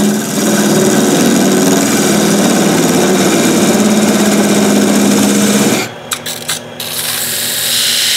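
A parting tool cutting into spinning wood on a lathe: a loud, steady scraping cut that stops about six seconds in. A few brief touches follow, then a second, shorter cut near the end.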